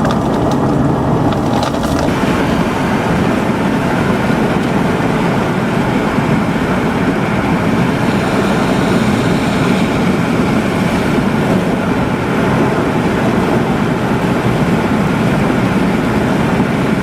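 Steady rumble of a storm-chase vehicle's engine and road noise.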